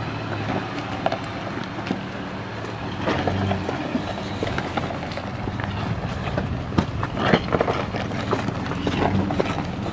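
Toyota FJ Cruiser's 4.0-litre V6 running steadily at low revs as it crawls up a rocky track, with stones crunching and clicking under the tyres.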